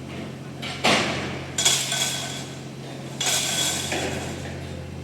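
Three metal-on-metal clangs, each ringing briefly, the first about a second in and the last about three seconds in, over the steady low hum of running machinery.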